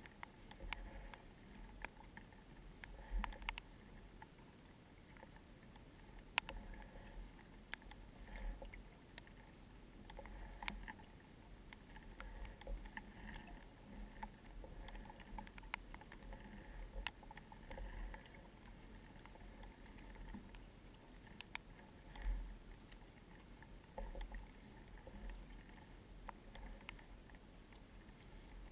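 Paddling an inflatable kayak on calm water: soft paddle splashes and water against the hull, swelling every second or two, with scattered sharp ticks.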